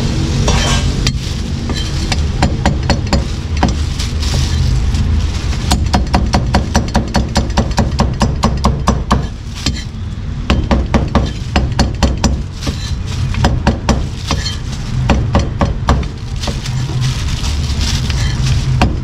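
Heavy meat cleaver chopping roast pork and offal on a thick round wooden chopping block: quick runs of sharp chops, about five a second, broken by short pauses.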